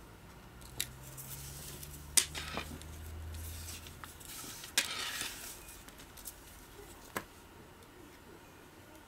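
Nylon camera neck strap rustling and sliding as it is threaded through the camera's strap lug, with four sharp clicks from the strap's fittings against the camera body.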